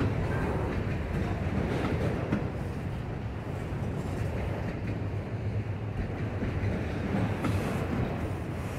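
Norfolk Southern freight train rolling past: a steady rumble of railcar wheels on the rails, with a few faint clicks.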